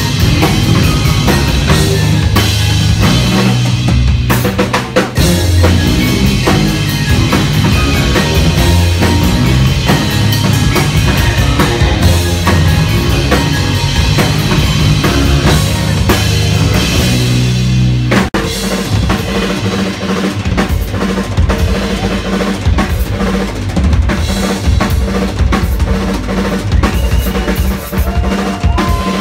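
Loud live instrumental rock from a bass guitar and drum kit, with distorted bass lines over busy drumming. About two-thirds of the way through, the sustained bass drops away and the drum kit carries on mostly alone.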